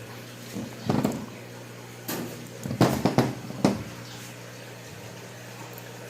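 Steel BBs being loaded into an Umarex Glock 17 CO2 pistol magazine: a few small metallic clicks and rattles, about a second in and again around three seconds in, over a steady low hum.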